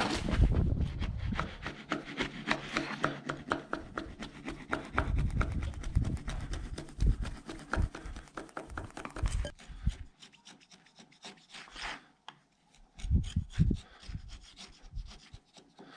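Steel wood chisel paring and scraping torn fibres off the sawn end of an oak beam, cleaning up the tear-out left where the saw exited. Quick short strokes for about the first ten seconds, then a few slower, spaced strokes.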